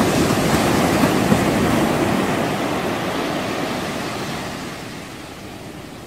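Sea water rushing past a moving tour boat, with wind on the microphone. It is a steady rushing noise that grows fainter over the second half.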